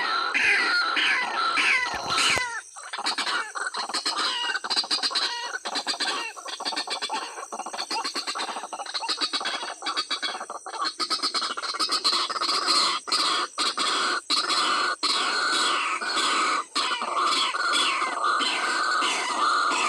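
White-breasted waterhens calling: a dense run of harsh, repeated calls, each sliding down in pitch, going on without pause, with a steady high-pitched whine behind.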